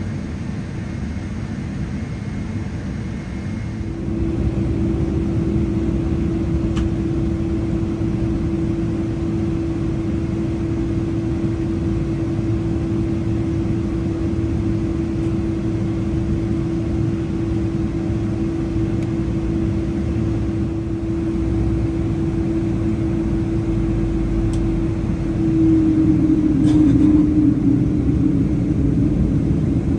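Jet engine and airflow noise heard inside a Boeing 777-200ER's cabin: a steady rumble with a steady engine drone. The drone grows louder about four seconds in, then dips slightly in pitch and gets louder near the end.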